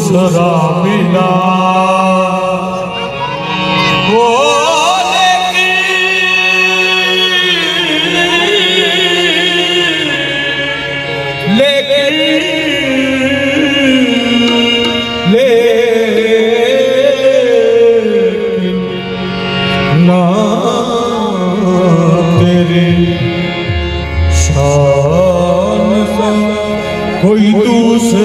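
Qawwali singing: a solo voice sings long, wavering ornamented phrases over a steady held drone.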